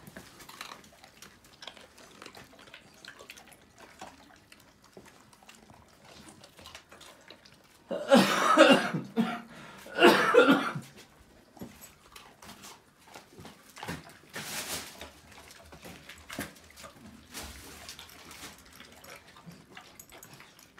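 Dogs eating from steel bowls, with faint clicks of chewing and bowl contact, broken by two loud coughs about eight and ten seconds in.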